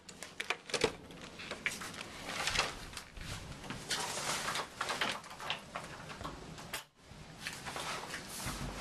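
A key clicking in a door lock and the door opening, followed by rustling and scattered knocks.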